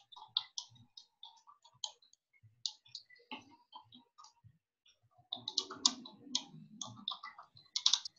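Computer keyboard keys clicking as a comment is typed, in irregular keystrokes that speed up into a faster run in the last few seconds.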